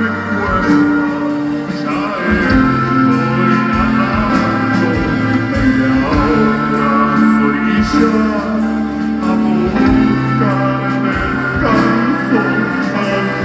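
Live band music, a passage with no sung lyrics.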